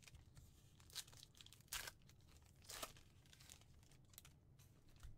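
Faint tearing and crinkling as a trading-card pack wrapper is ripped open by hand, in a few short rips about a second apart.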